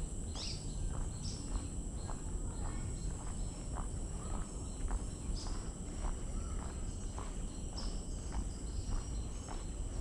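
Footsteps walking steadily along a boardwalk, about two steps a second, over a steady high insect drone, with a few short bird chirps.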